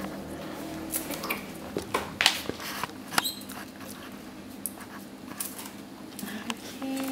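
Small plastic and foil from a chocolate surprise egg being handled, making scattered sharp clicks and crinkles that are densest in the first few seconds and then thin out.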